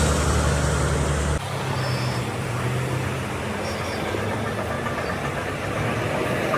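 Heavy vehicle engine running with a steady low hum. About a second and a half in, the sound changes abruptly to a noisier, lighter rumble of engine and road noise.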